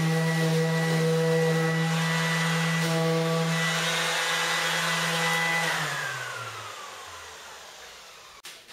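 Electric orbital sander with a dust bag running at a steady hum and whine. About six seconds in it is switched off and spins down, its pitch falling as it fades over two or three seconds, followed by a sharp click.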